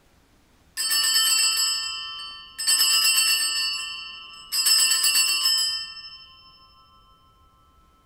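Altar bells rung three times as the host is elevated at the consecration. Each ringing is a bright jangle of several small bells lasting about a second, and the third fades out slowly.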